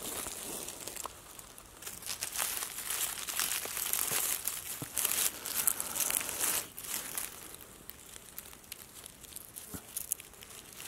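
Dry leaf litter and twigs rustling and crackling as a hand works through them and picks a mushroom out of the forest floor, with irregular sharp crackles; it grows quieter about two-thirds of the way in.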